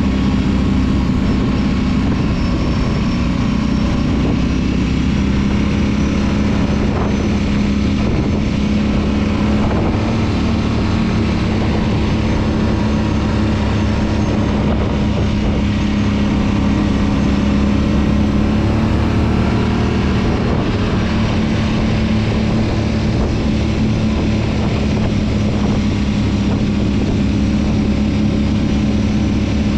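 ATV engine running steadily under way, its pitch rising and falling only slightly.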